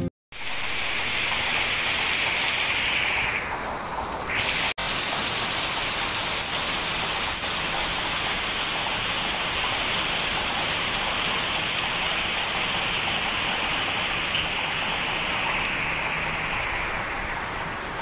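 Heavy rain pouring steadily onto a lawn, potted plants and tree foliage, with a brief cut in the sound about five seconds in.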